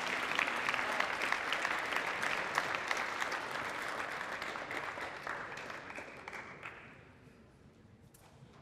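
Audience applause, many hands clapping, which dies away about seven seconds in.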